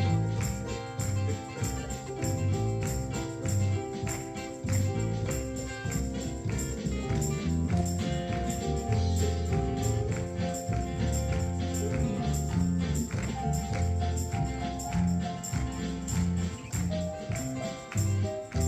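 Instrumental passage of a gospel worship song, the band playing on with a steady, even beat of jingling percussion over bass and held chords.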